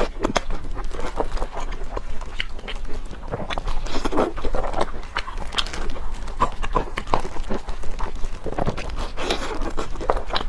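Close-miked eating: wet chewing, smacking and biting, irregular clicks several times a second.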